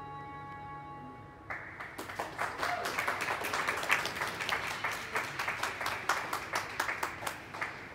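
Skating program music ends on held notes, then applause breaks out about a second and a half in, louder than the music, and thins out near the end.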